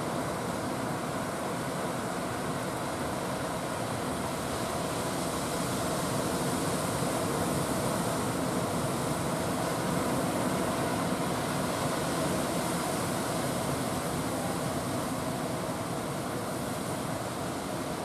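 Steady roar of rough surf, with the drone of the outrigger fishing boats' engines running beneath it. No single event stands out; the sound swells slightly about halfway through.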